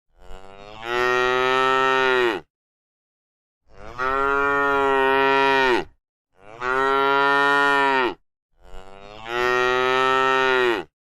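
A cow mooing: four long moos of about two seconds each, separated by short silent gaps, each one dropping slightly in pitch at its end.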